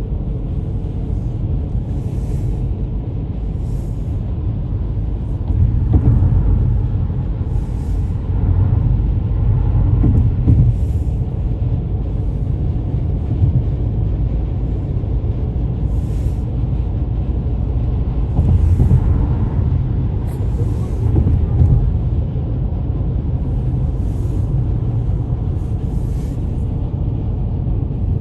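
Car road noise from inside the cabin while driving: a steady low rumble that swells louder several times.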